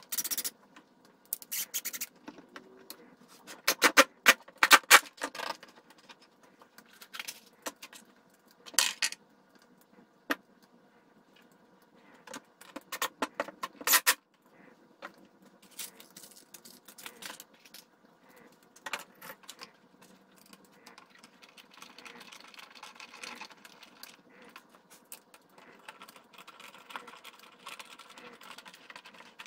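Short bursts of a cordless drill/driver driving screws into wood, with clinks of screws and small metal hardware being handled in between; the last third is quieter handling and rustling.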